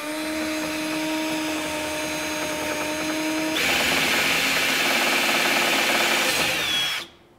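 Cordless drill drilling holes up through a Jeep Wrangler hard top. It runs with a steady whine for about three and a half seconds, then gets louder and rougher as the bit cuts through, and stops about a second before the end.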